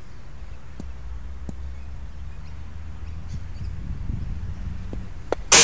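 A few sharp ticks of a table tennis ball striking bat and table over a low steady hum. Near the end, a sudden loud rush of noise sets in and is the loudest sound.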